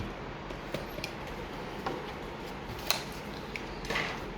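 A few light, scattered clicks and taps from computer parts and their packaging being handled, over a steady low room hum.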